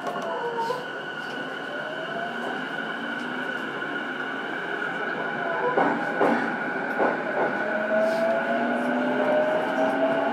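Running noise inside a JR East E233-7000 series electric train's motor car, MoHa E233-7003. A steady high whine holds throughout, a few brief knocks come about six to seven seconds in, and from about eight seconds in the traction motor and inverter tones rise slowly in pitch as the train gathers speed.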